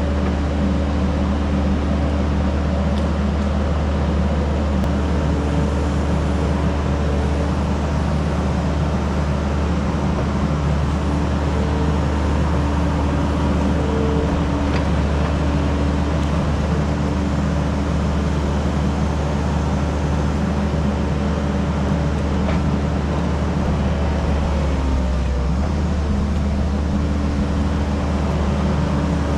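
Diesel engine of heavy working equipment running steadily at a constant speed, with a brief change in its note about twenty-five seconds in.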